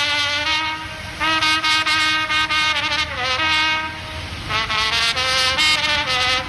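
A wind instrument played solo, a slow melody of held notes that step from pitch to pitch, with a short dip in the playing about four seconds in.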